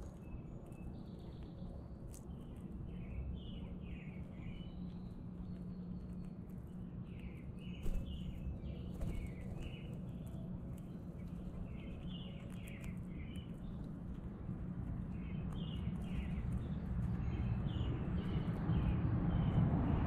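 Small backyard songbirds chirping repeatedly in short, high notes, over a steady low rumble that grows louder toward the end. A single sharp tap comes about eight seconds in.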